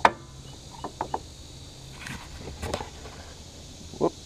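Scattered clicks and light knocks of a new paper-element fuel filter being handled, with one sharp click right at the start the loudest and a few lighter ones after it.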